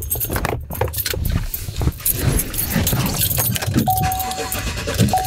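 Keys jangling and clicking as a driver gets into a pickup truck and puts the key toward the ignition, followed about four seconds in by the truck's steady electronic warning chime, which breaks off briefly and starts again.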